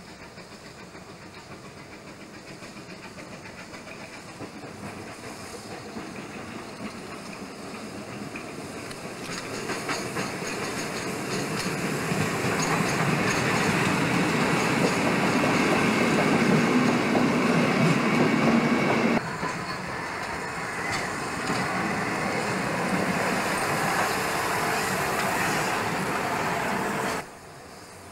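Steam-hauled passenger train passing close by, its coach wheels clattering over the rail joints. The sound builds to a loud, steady run of passing coaches, then drops suddenly about two-thirds of the way through, and again just before the end.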